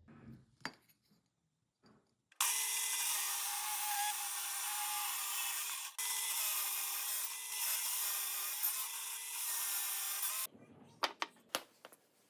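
A power tool runs under load for about eight seconds, with a short break near the middle, its motor tone steady under a harsh cutting hiss. A few clicks and knocks come before and after it.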